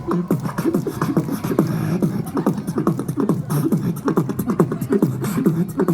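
Human beatboxing: a fast, unbroken rhythm of vocal kick and snare strokes, woven with a pitched vocal bass that slides down in pitch over and over.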